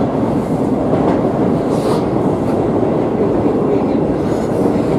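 Madrid Metro series 8400 train running between stations, heard from inside the passenger car: steady noise of wheels on rails and the running train.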